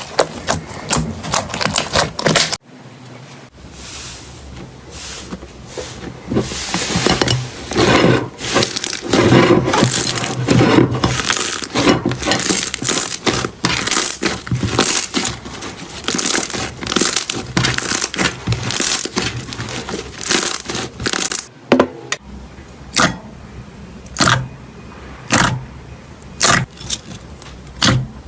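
Slime being squeezed, stretched and pressed by hand, giving dense crackling and popping, with abrupt changes about two and a half seconds in and again near the end. Toward the end the pops come singly, roughly one a second.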